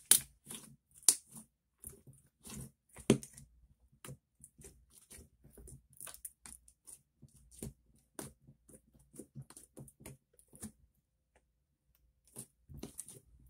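Thick glossy slime being squished, pressed and pulled by hand against a tabletop, giving sticky clicks and small popping crackles. A few sharper pops come in the first three seconds, and the sound pauses briefly near the end.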